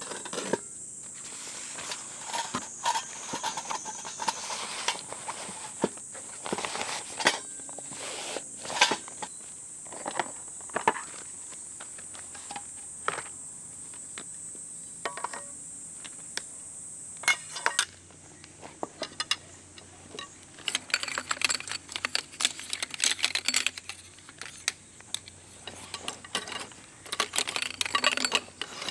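Folding camp furniture being taken down and packed: irregular clicks, knocks and rattles of metal legs and poles, busiest in the second half as the chair frame goes into its bag. A steady high insect drone runs behind for the first two-thirds, then drops away.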